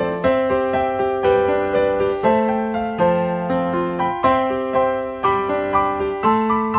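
Background piano music: a slow, gentle tune with chords struck at an even pace of about two a second, each note dying away.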